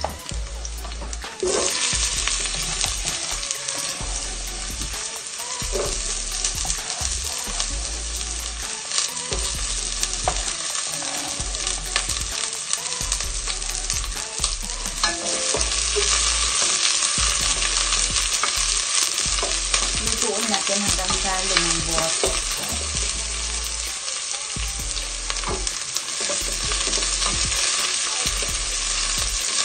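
Chopped red onion and garlic sizzling in hot oil in a stainless steel pot, stirred with a wooden spoon. The sizzle jumps up suddenly about a second and a half in and then stays steady, with a few light clicks of the spoon against the pot.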